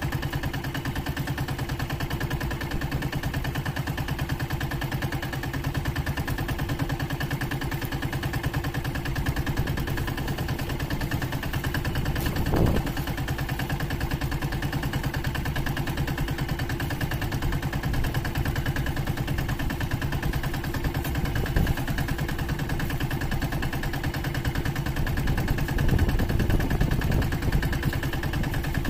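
Small outrigger fishing boat's engine running steadily with a fast, even firing beat. A single sharp knock about halfway through.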